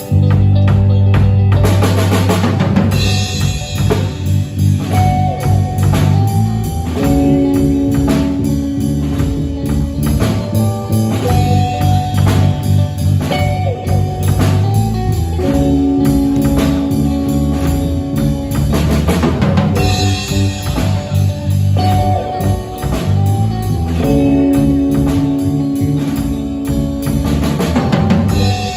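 Rock band playing live: drum kit, electric bass and electric guitars repeating a riff of held notes, with cymbal crashes about two seconds in, again near twenty seconds and near the end.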